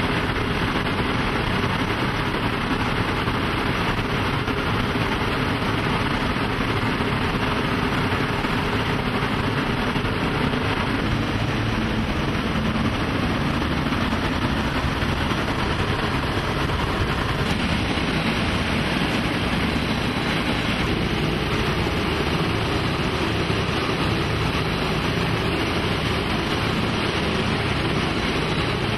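Steady drone of the B-17's four Wright R-1820 Cyclone nine-cylinder radial engines and propellers in cruise, mixed with rushing airflow, heard inside the bomber's fuselage.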